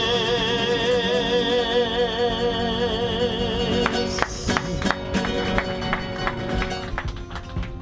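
Latin American folk song on acoustic guitar: a long held note with vibrato that stops about four seconds in, followed by plucked and strummed guitar chords.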